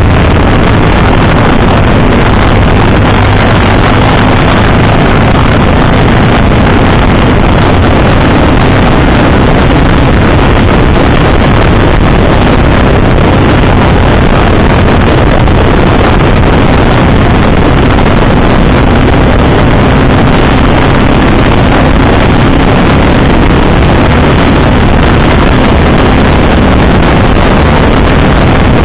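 Loud, constant wind rushing over the microphone of a camera on a moving motorcycle, with the motorcycle's engine droning steadily underneath.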